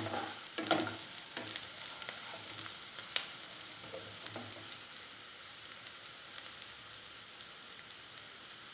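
Onion, green chilli, garlic and ginger sizzling in hot oil in a pan, with a few clicks and scrapes of a spoon stirring them in the first few seconds, then a steady sizzle that eases slightly.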